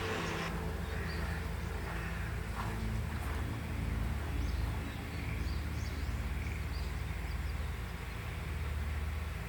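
Outdoor countryside ambience: a steady low rumble with faint bird chirps scattered through the middle. Music fades out about half a second in.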